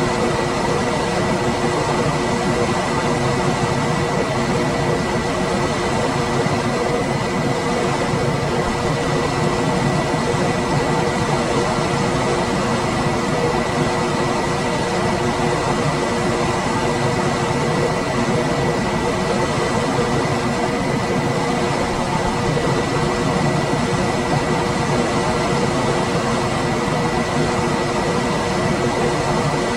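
Room air conditioner running steadily: a constant rush of fan air with a hum and a thin high whine held at one pitch throughout.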